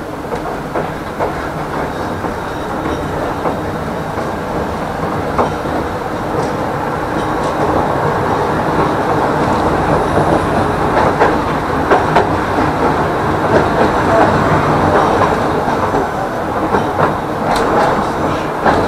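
Tram running along its rails: a steady rumble of wheels on track with scattered sharp clicks, growing louder through the first half as it picks up speed.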